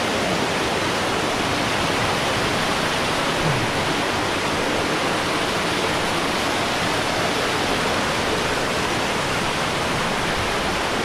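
Water rushing steadily through a narrow rock gorge, a stream cascading over small falls, as one even roar with no breaks.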